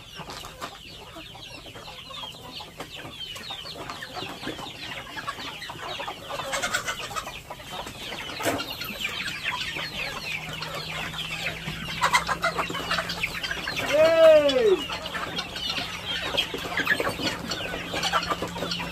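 A flock of free-range chickens clucking and calling continuously. One louder, drawn-out call rises and falls in pitch about two-thirds of the way through.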